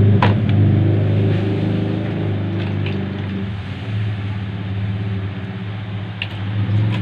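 A steady low hum from a running motor or engine, with a sharp click just after the start; it eases a little over the first few seconds.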